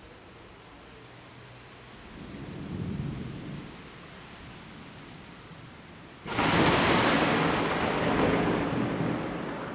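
Thunder: a low rumble swells and fades a couple of seconds in, then a sudden loud crack of a close lightning strike about six seconds in breaks into a long rumble that slowly dies away, over a faint steady hiss.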